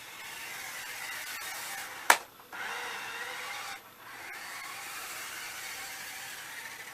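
Small electric motor of a toy remote control car whirring as the car drives, with one sharp knock about two seconds in. The whirr stops briefly after the knock, dips again a little later, then runs on.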